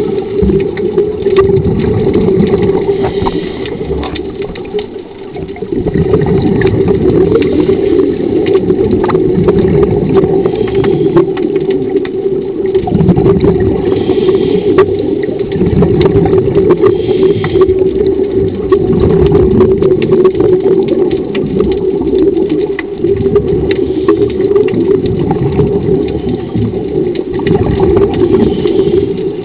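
Diver propulsion scooter's motor running underwater with a steady hum, heard through the camera's housing, over bubbling water noise; the hum briefly drops about four to six seconds in.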